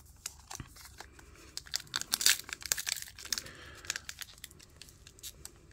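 A foil trading-card pack (Topps Match Attax) being torn open by hand: crinkling wrapper and sharp crackling tears, loudest about two seconds in.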